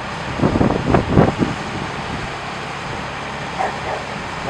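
Steady outdoor background noise, with a few short pitched calls clustered from about half a second to a second and a half in, and one more near the end.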